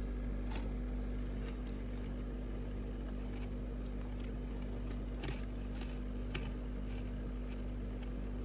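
A steady low hum with faint, sharp clicks and crackles scattered through it, a few of them close together around five and six seconds in.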